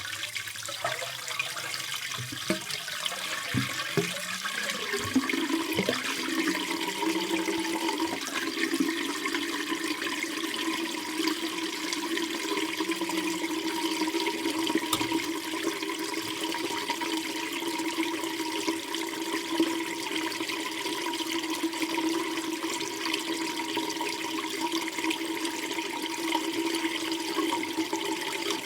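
Bath water draining down a bathtub plughole, running steadily. A few drips and knocks come in the first few seconds, and from about six seconds on a steady droning tone sits in the flow.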